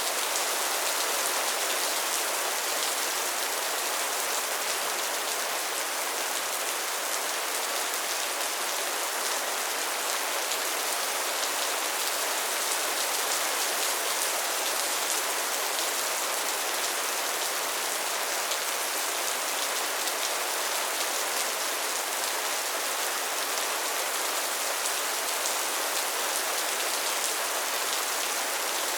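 Steady rainfall: an even hiss of rain with a fine patter of drops hitting a surface, unchanging in level.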